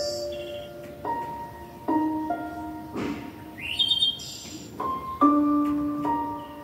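Background music: slow piano notes, each struck sharply and left to ring, with a new note about every second.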